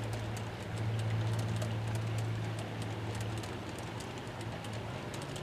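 G-scale model freight cars rolling along garden railway track, their wheels clicking rapidly and unevenly over the rail joints, over a steady low hum.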